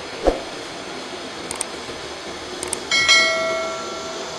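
A dull thump, a couple of light clicks, then a butcher's steel knife clanging against metal with a ringing tone that fades over about a second.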